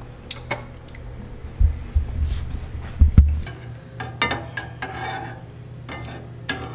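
A metal spoon stirring thick gravy in a saucepan, with short clinks and scrapes against the pot from about four seconds in. Before that come a few dull low thumps, the loudest sounds, and a steady low hum runs underneath.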